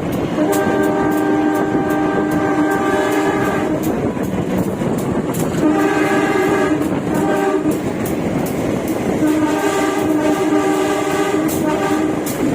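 Diesel locomotive horn sounding a chord of several notes in long blasts: one of about three seconds, a shorter blast with a brief toot around six to seven seconds in, and another of about three seconds near the end. These are warning blasts for level crossings. Under them run the rumble of the moving train and the clicking of wheels over rail joints, heard from inside a carriage.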